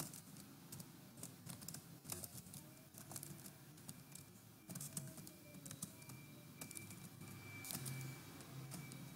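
Faint typing on a computer keyboard: irregular keystroke clicks as a line of C code is entered.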